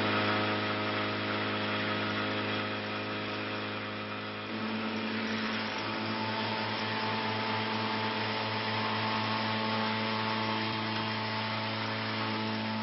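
Mercedes-Benz G-Class off-roader's engine running with a steady, even hum that grows slightly fuller about four and a half seconds in.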